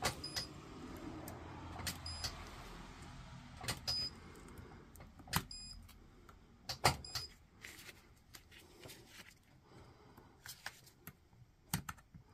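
A handheld spot welder fires weld pulses through its two probe pens into nickel strip on the pack's lithium-ion cells, joining the replacement cells to the rest of the pack. About a dozen sharp snaps come at uneven intervals, many of them in quick pairs, and several carry a short high tone.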